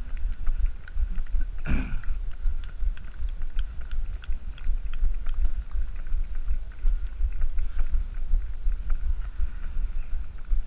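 Wind buffeting the microphone of an action camera carried by a running runner, a steady uneven rumble, with faint regular taps about three times a second from the runner's strides. A short voice call, falling in pitch, about two seconds in.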